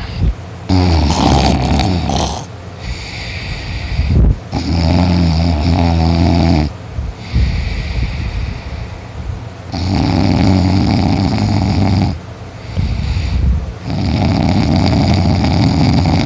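Heavy snoring of a person sleeping deeply after drinking: four long, loud snores, one about every four seconds, with quieter breaths between.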